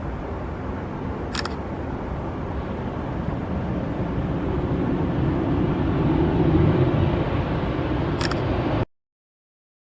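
Low rumble of an approaching jet airliner slowly growing louder, with a camera shutter clicking twice, about a second in and again near the end. The sound then cuts off suddenly.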